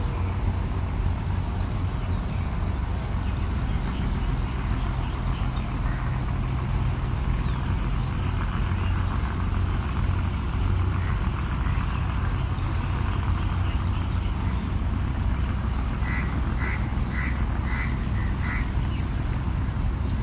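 A crow cawing, a quick run of about six harsh caws near the end, over a steady low rumble of background noise.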